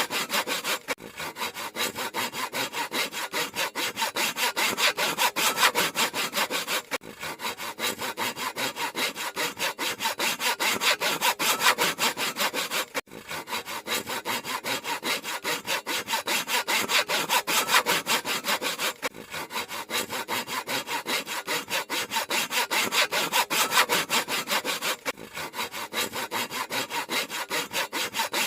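Handsaw cutting through wood in quick, steady back-and-forth strokes, with a brief break about every six seconds.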